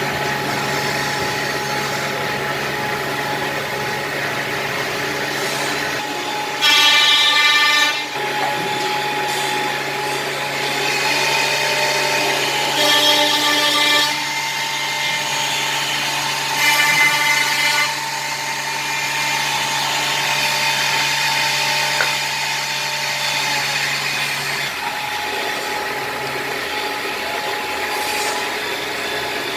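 K3 woodworking drilling machine running with a steady motor hum. Three times it gets louder for a second or two with a higher whine, as the bits bore into wood. The deepest part of the hum stops about 25 seconds in.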